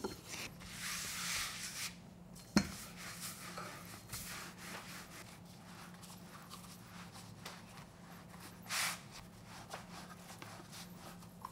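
Wooden rolling pin rolling a thin sheet of noodle dough wrapped around it on a floured wooden board: soft, faint rubbing and rolling on and off, with one sharp knock about two and a half seconds in. A faint steady hum runs underneath.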